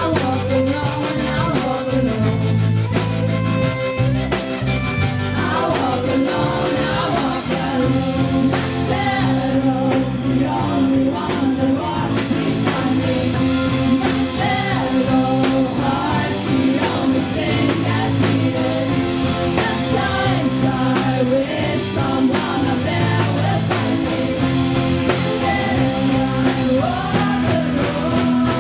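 Live rock band with several singers on handheld microphones, backed by electric guitar and a drum kit, playing a song with a steady beat.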